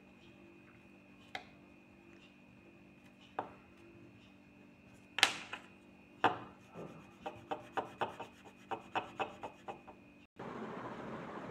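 Wax crayon on paper over a wooden desk: scattered sharp knocks, two louder ones around the middle, then a quick run of taps about three or four a second. Near the end it cuts abruptly to a steady hiss.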